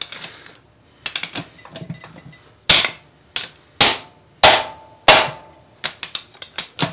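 Hammer blows, metal on metal, on a steel bar braced against the gear set of a 2001 Mazda Tribute transmission. A few lighter knocks come first, then four hard strikes roughly a second apart through the middle, one leaving a short ring, and quicker, lighter knocks near the end.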